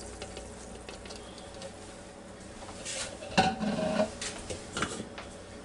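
Kitchenware being handled: a few light knocks and clinks, the loudest about three and a half seconds in, with a brief ring after it.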